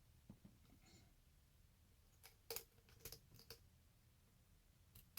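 Faint scattered clicks of a lock pick and tension wrench working the pins of a Viper challenge lock, a few light ticks over near silence.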